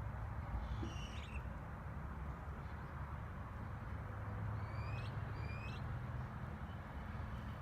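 Steady low background rumble with a bird calling: one short call about a second in, then two quick matching calls near the middle.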